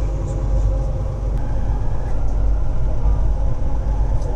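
Light-rail metro train on the Kelana Jaya Line, heard from inside the carriage: a steady low rumble of the train running on the track, with a constant motor hum over it.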